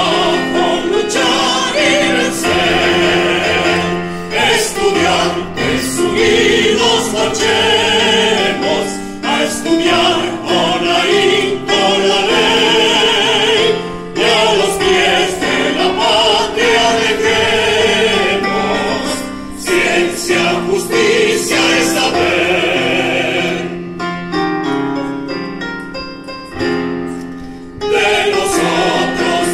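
Mixed choir of men's and women's voices singing a hymn in Spanish, accompanied by a digital piano. About 24 seconds in the voices pause briefly while the piano plays on, and the choir comes back in near the end.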